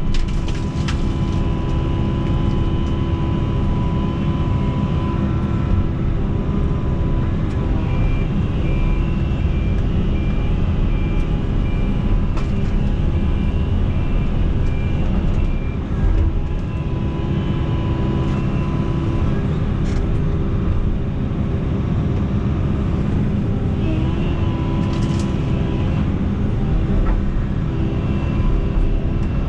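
Excavator diesel engine running steadily under work, with a thin whine that comes and goes over the engine hum.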